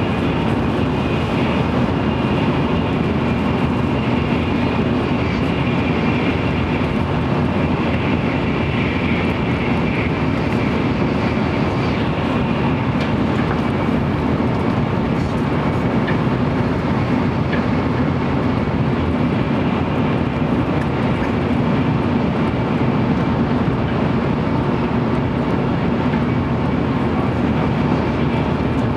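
Steady running noise inside a JR Central N700 series Shinkansen motor car at speed: a broad, even rumble of wheels, rails and air. A faint high whine in the first ten seconds or so fades out.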